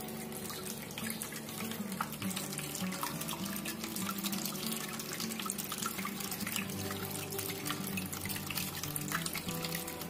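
Thin streams of water falling from a small cement tabletop waterfall fountain and splashing into its basin: a steady trickle full of small splashes, with background music under it.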